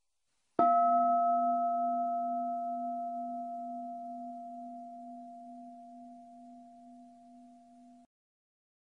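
A bell struck once about half a second in, its low hum and two higher tones fading slowly over about seven seconds, then cutting off abruptly.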